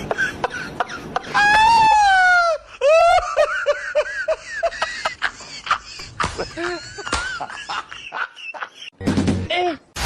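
High-pitched human screaming and shrieking cries: one long held scream about a second in, then a rapid run of short yelps, with scattered shorter cries after.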